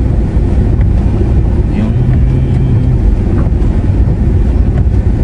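Steady low rumble of a car driving slowly, heard from inside the cabin: engine and tyres on a wet concrete street.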